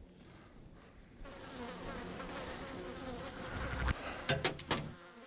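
Blowflies buzzing around a decomposing pig carcass. The buzzing grows louder about a second in, and a few sharp clicks of handling come near the end.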